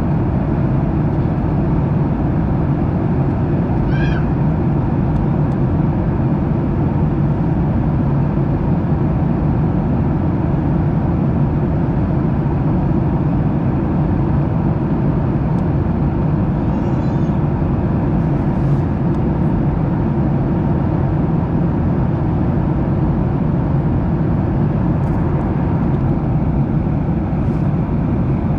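Steady cabin noise inside a Boeing 737-900ER airliner: a constant low rush of engine and airflow noise, holding level throughout.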